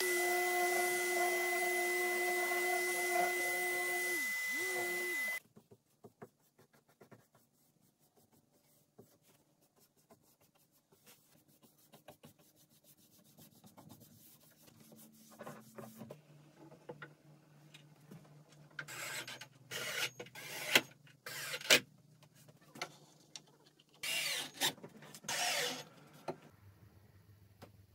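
An electric random orbital sander runs steadily with a whine for about five seconds, then cuts off abruptly. After that come quieter rubbing and scraping sounds on wood with a few sharp knocks, and a low steady hum starts near the end.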